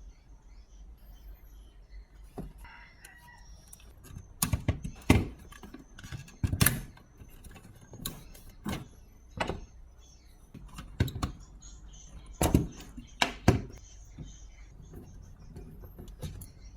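Irregular clicks and knocks, about ten of them, from hands working on an HP T610 thin client mini PC during its teardown and upgrade.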